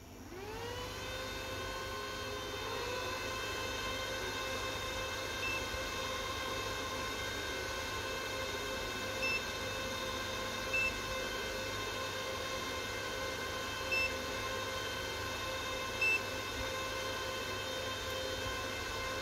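Power inverter's cooling fan running: its hum rises in pitch as it spins up at switch-on, a second rising hum joins about two and a half seconds in, and both hold steady until they wind down at the very end. Five short high beeps from the ET828 Pro multimeter's buttons sound over it.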